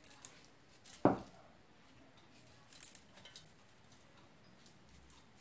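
A single sharp clink of dishware about a second in, from a small ceramic bowl of salt being handled and set down beside a stainless steel pot, followed by a few faint light clicks.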